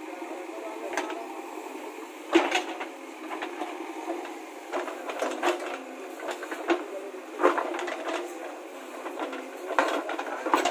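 JCB 3DX backhoe loader's diesel engine running steadily as the backhoe digs, with several sharp clanks and knocks from the bucket and arm working in stony earth.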